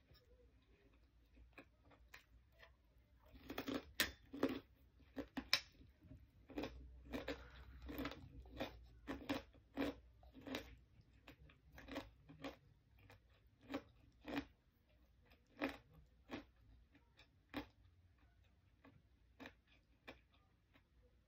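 A person chewing food in a steady rhythm of about two chews a second. It starts a few seconds in, with a sharp click early on, and slows and thins out near the end.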